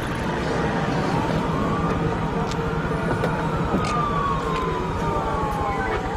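Emergency vehicle siren wailing in one slow rise and fall over a steady background rumble, with a few light clicks.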